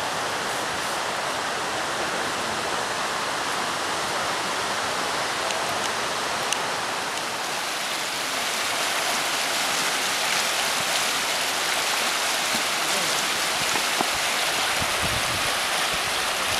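Steady rush of a fast-flowing river running over rocks, growing a little louder about halfway through.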